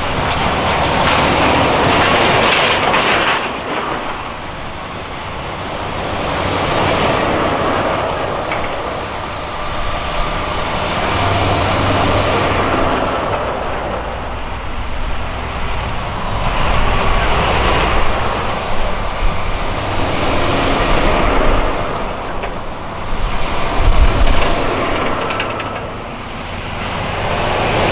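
A convoy of military trucks driving past one after another. The engine and tyre noise swells and fades with each vehicle, about six passes.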